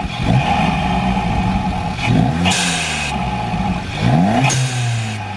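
Audi A1's 1.4 TFSI turbocharged four-cylinder, fitted with an MST open-cone induction kit, revved three times while standing, each rev rising in pitch and falling back. A hissing rush of air comes near the top of the second and third revs.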